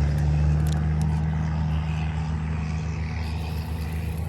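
Steady low engine drone of a passing motor, slowly fading, with a few faint light clicks in the first second.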